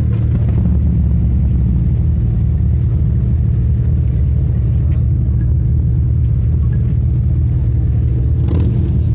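Motorcycle engine idling steadily through its exhaust, a deep, even low rumble with no revving.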